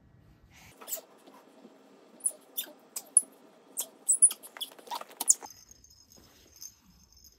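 A baby crawling on a laminate wood floor: irregular sharp slaps and taps of small hands, a few each second, with brief high squeaks mixed in. They stop suddenly about five seconds in, leaving a faint steady high whine.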